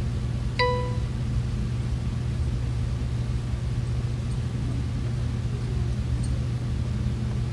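Kronos time clock gives one short electronic beep about half a second in, confirming a completed fingerprint capture. A steady low hum continues underneath.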